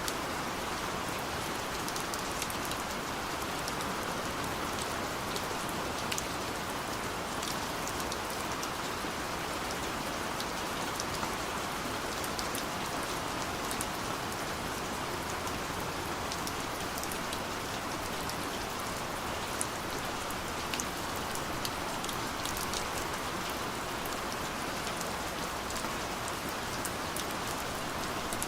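Steady rain falling, with many fine drop patters over a constant hiss.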